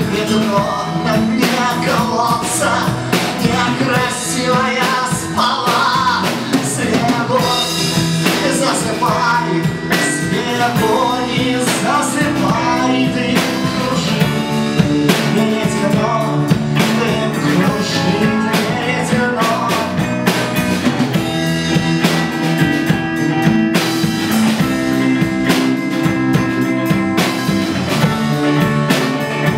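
Rock band music with drum kit and guitar, in a blues-rock style; a melodic line winds through the middle, which may be sung or played.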